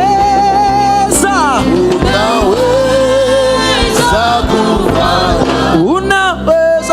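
Live gospel worship music: a lead voice singing long, held and sliding notes over keyboard and band accompaniment.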